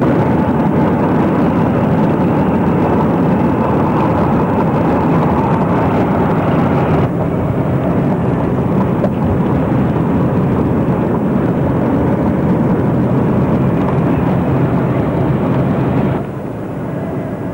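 Steady rush of road and wind noise heard from inside a moving vehicle at highway speed, dropping noticeably in level about sixteen seconds in.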